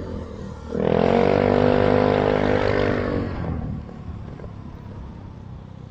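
A motor vehicle's engine rises loudly about a second in, with a rushing noise, holds for a couple of seconds, then fades to a low steady engine and road hum.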